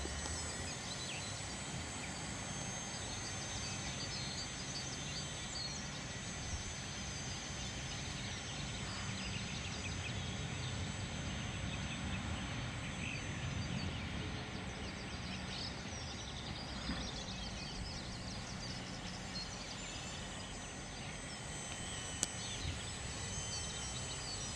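Gusty wind rumbling on the microphone over open-air noise, with a faint steady high whine from a radio-controlled model helicopter flying high overhead.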